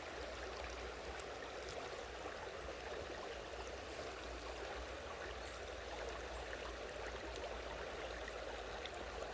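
Steady, even rush of water flowing at a waterfall.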